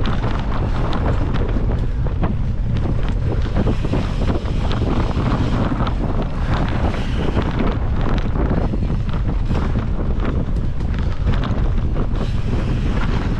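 Mountain bike ridden fast over a dirt singletrack: a steady rush of wind on the microphone, with a constant run of small rattles and clicks from the bike and tyres over the rough trail.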